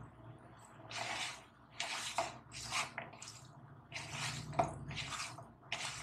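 Thick noodle-and-besan pakora batter being mixed: wet squelching strokes, about one a second.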